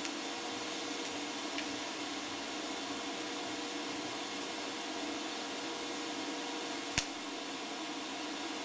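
TIG welding arc from a FoxWeld UNO TIG 200 DC inverter, set to about 100 A DC, burning steadily on steel with a steady hiss and a faint whine. About seven seconds in, the arc stops with a sharp click. The hiss of the argon post-flow goes on after it.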